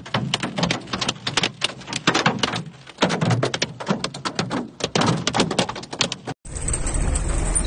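Hailstones hammering on a car's windshield and body, heard from inside the car: a dense, irregular clatter of sharp impacts. About six seconds in it cuts off abruptly and gives way to a steady low noise.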